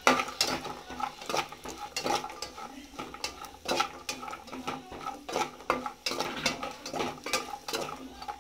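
A steel spoon scraping and clinking against an aluminium pan while stirring cashews and raisins, in repeated irregular strokes about two a second.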